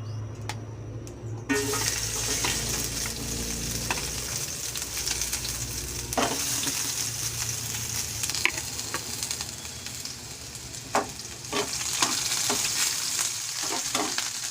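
Pork and chicken adobo sizzling in the pan as it is stirred, with a utensil clicking against the pan a dozen or so times. The steady sizzle gets louder about a second and a half in.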